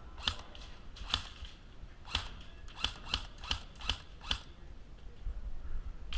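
Airsoft guns firing single shots: about eight sharp snaps, unevenly spaced, over a low background rumble.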